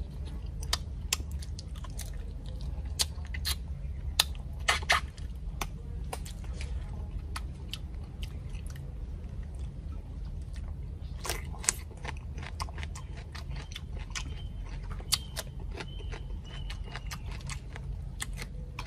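Close-up chewing of crispy deep-fried crocodile head meat and skin: wet chewing broken by many sharp, crackling crunches, with a denser burst of crunching about eleven seconds in, over a steady low rumble.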